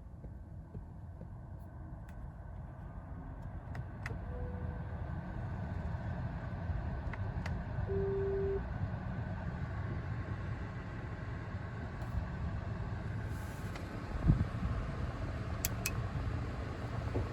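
Low rumble of the electric Volkswagen ID.4 under way, slowly growing louder. Two short electronic tones sound about four and eight seconds in, with a few light clicks and a single dull thump near the end.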